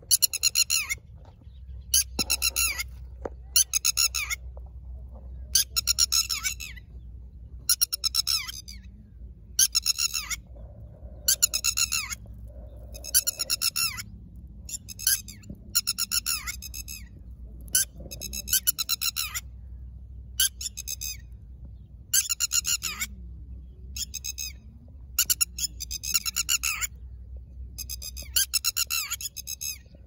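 Red-wattled lapwing calling again and again, each call a short run of rapid notes (its 'did-he-do-it' call), about one every two seconds. This is the species' alarm call, typical of a bird whose nest of eggs on the ground is being approached.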